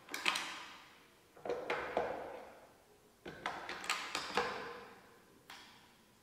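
Knocks and clacks from a gas discharge tube power supply being handled as its tube is swapped for a neon tube. The sounds come in four groups, each with a short ring after it, the last a single click near the end.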